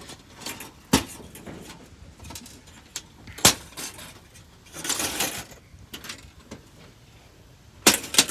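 Sharp snaps and knocks of television parts being pried apart by hand: single cracks about a second in and about three and a half seconds in, a short rattle around five seconds, and two quick snaps near the end.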